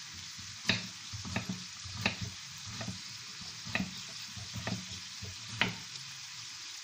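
Kitchen knife cutting zucchini on a wooden cutting board: a series of sharp knocks, about one a second. Underneath is the steady sizzle of onion and sausages frying in a pan.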